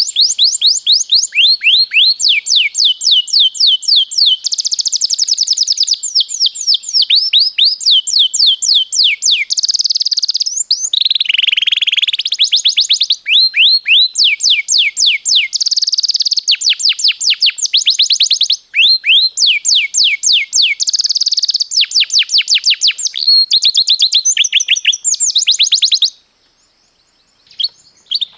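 Domestic canary singing a long, continuous rolling song: phrase after phrase of fast, repeated downward-sweeping notes, with buzzier trills between them. The song breaks off near the end.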